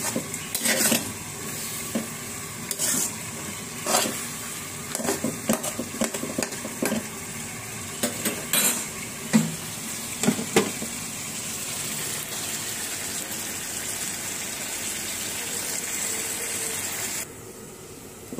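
Metal spatula stirring and scraping leafy greens in a hot karahi, with repeated clinks and knocks against the pan over a steady sizzle. About ten seconds in a metal lid goes on the pan and only the steady sizzle goes on, dropping away sharply near the end.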